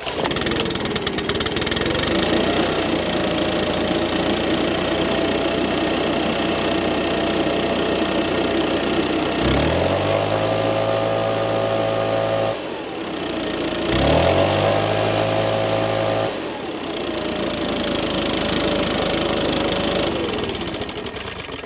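Stihl BR550 backpack blower's two-stroke engine running on a freshly fitted aftermarket carburetor, throttled up twice for a few seconds each and dropping back, then its pitch falls and it fades near the end.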